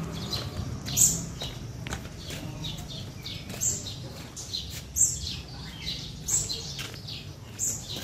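Caged songbirds chirping: a sharp, high call that sweeps downward comes every second or so, with softer chirps in between.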